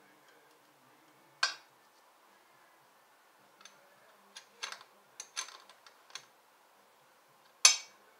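Small metal clicks and clinks of tools and parts as a new battery is fitted into a Harley-Davidson Dyna Wide Glide: one sharp click about a second and a half in, a run of lighter clicks in the middle, and the loudest clank near the end.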